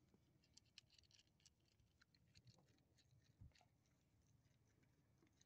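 Near silence, with faint scattered ticks and clicks and one soft thump about three and a half seconds in.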